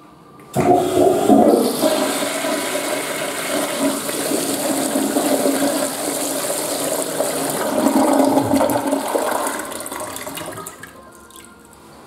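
Tankless flush-valve Western-style toilet flushing: a sudden rush of water about half a second in, swirling and draining for about ten seconds, then tapering off near the end.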